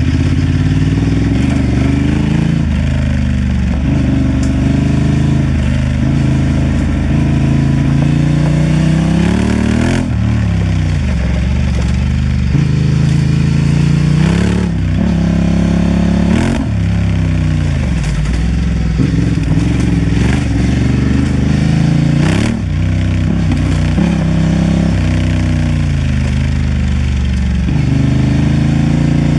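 Honda Transalp XL750's parallel-twin engine under way. Its pitch rises and falls again and again as the throttle opens and closes and gears change. A few short, sharp knocks come through.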